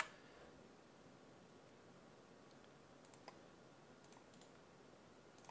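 Near silence with a handful of faint computer mouse clicks, most of them about three to four and a half seconds in.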